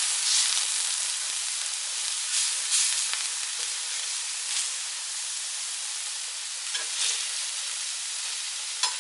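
Sliced onions, tomatoes and peppers sizzling on a raclette grill's hot plate: a steady hiss with brief louder crackles, busiest in the first few seconds.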